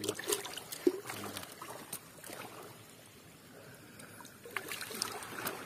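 Scattered rustles and clicks of fish being handled in a thin plastic bag, then a hand swishing in a bucket of water near the end.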